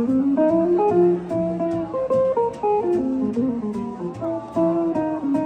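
Background music led by a plucked guitar playing a melody.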